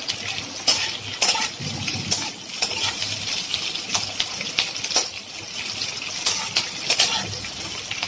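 A metal spatula clinking and scraping against a pan, over and over at an uneven pace, while fish heads and onions sizzle in hot oil.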